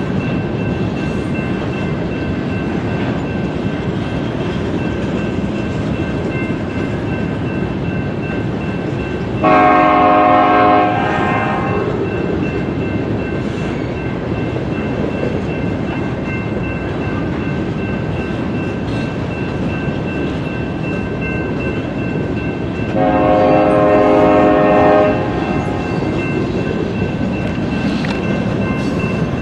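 A freight train's diesel locomotive sounding its multi-chime air horn in two blasts, a short one about ten seconds in and a longer one a little over twenty seconds in, over the steady rumble of the passing train.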